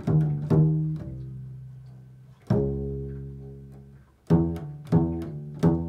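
Slow, improvised plucked notes on a low string instrument, each struck sharply and left to ring and fade. Three quick notes come near the start, a longer ringing note about two and a half seconds in, then three more plucks near the end.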